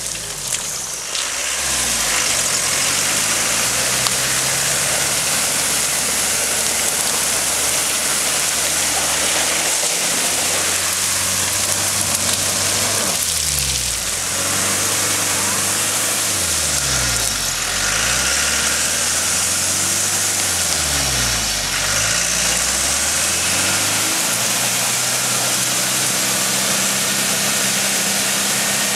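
Land Rover Discovery's engine working off-road, its revs dropping and climbing again several times, over a steady hiss.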